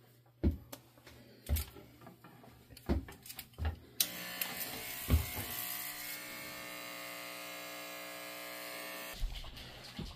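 Electric hair clippers switch on about four seconds in, buzz steadily for about five seconds, then cut off, as if shaving a head. A few knocks and thumps of handling come before it.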